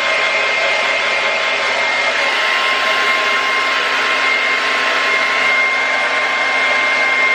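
Hair dryer running steadily, a rush of air with a steady whine, drying a layer of lace-wig glue before the next layer goes on.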